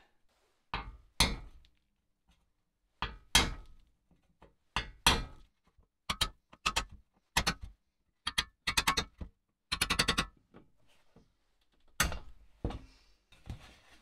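Ball-peen hammer striking a punch held against a rusty metal radiator fan shroud to knock out its flaps. The blows are sharp: a few in pairs at first, then quick runs of several strikes in the middle, and a few single blows near the end.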